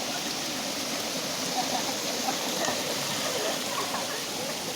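Steady rush of waterfall water over rocks, with faint distant voices of people.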